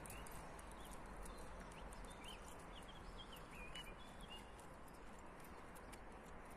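Quiet outdoor background with a low, even hum and a scatter of light ticks, and faint bird chirps about two to four seconds in.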